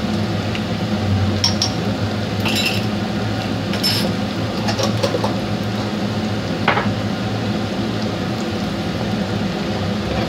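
Eggs and chopped garlic frying in oil in a pan, a steady sizzle over a low hum, with a few short clinks and taps of a jar and spatula against the pan and counter.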